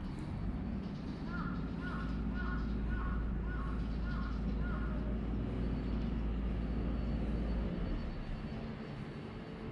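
A crow cawing: a run of about seven short calls, roughly two a second. Under it is a steady low rumble that stops abruptly near the end.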